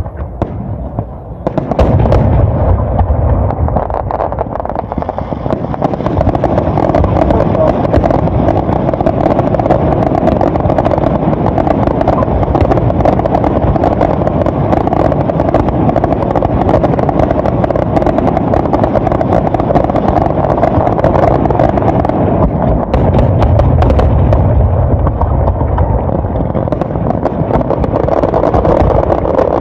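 Fireworks display: aerial shells bursting in a dense, near-continuous barrage of booms and crackles with a heavy low rumble. It starts quieter and swells to full loudness about two seconds in.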